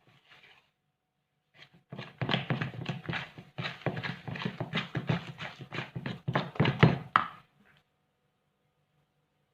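Dough being worked by hand, giving a quick, uneven run of soft thumps and slaps, several a second. It starts about two seconds in, is loudest just before it stops, and stops shortly before eight seconds.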